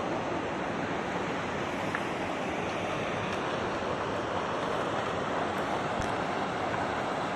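Steady rush of river water pouring over rocks in shallow rapids.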